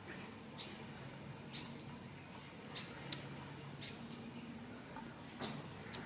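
Five short, high-pitched chirps, each a quick rising squeak, repeating about once a second.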